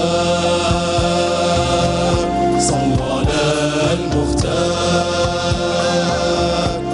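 Male vocal ensemble singing Algerian inshad, a devotional chant in praise of the Prophet, in long held notes over regular low drum beats from the accompanying band.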